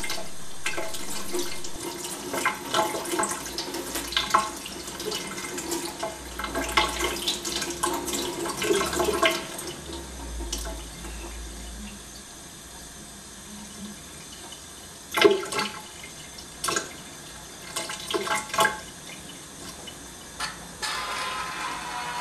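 Tap water running and splashing over a phone held in the stream and into a stainless steel sink, with irregular louder splashes as the phone is turned under the water.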